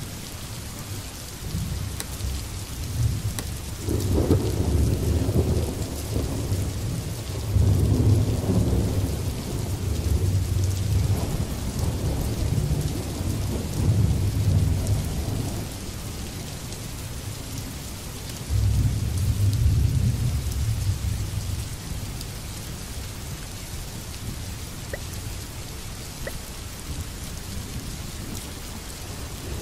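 Thunderstorm: steady rain hissing, with several long rolls of low thunder through the middle, one starting suddenly past the halfway point, then rain alone near the end.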